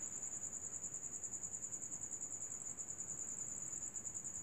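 A cricket trilling steadily in the background: one continuous high-pitched, rapidly pulsing trill, faint.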